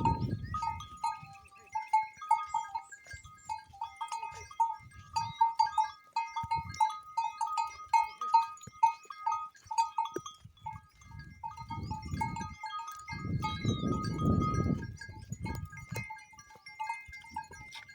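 A herd of goats, with bleats loudest around the middle and again near the end, over a constant patter of quick, short, high notes.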